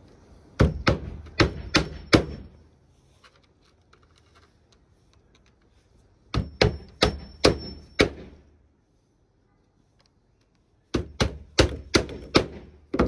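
Roofing hatchet driving nails through asphalt starter shingles into the roof deck. There are three bursts of about five to seven quick blows each, a few seconds apart.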